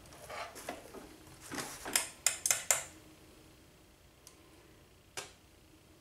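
Light metallic clicks and taps of a key and small tools being handled on a workbench: a cluster over the first three seconds, loudest near the end of it, then one more click about five seconds in.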